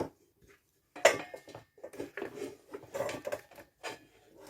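Small hard plastic and metal fountain parts being handled and set down on a table: a run of clicks, knocks and light clatter starting about a second in.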